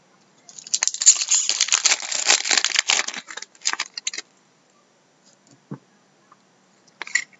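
Crinkling rustle of trading card packaging being handled for about three seconds. It trails off into a few scattered rustles, with a faint knock and a brief rustle near the end.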